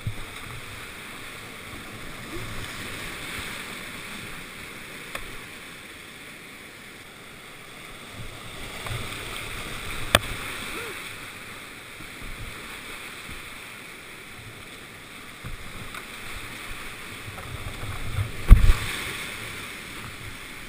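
Rushing whitewater of a steep mountain creek, heard close up from an open canoe running the rapids, with a sharp click about ten seconds in and a heavy low thump near the end.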